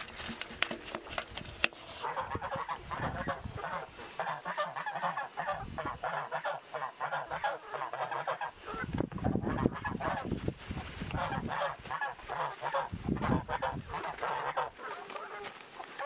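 Farm fowl calling over and over, many short cries one after another, with a few low rumbles about nine and thirteen seconds in.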